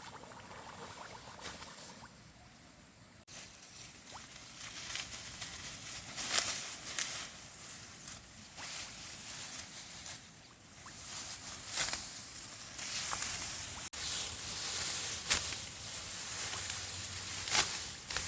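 Irregular rustling with many short crackles and taps, growing busier and louder from about six seconds in.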